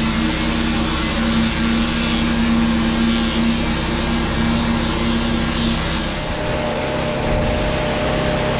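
An engine running steadily, with a steady hum; its tone shifts about six seconds in.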